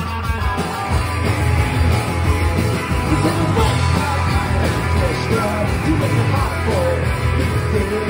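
Punk rock band playing live, with electric guitars, bass guitar and drums, heard from among the crowd.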